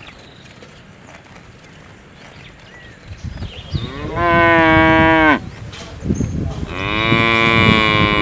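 A cow mooing twice. The first moo comes about four seconds in and lasts about a second and a half. A longer second moo starts near the end.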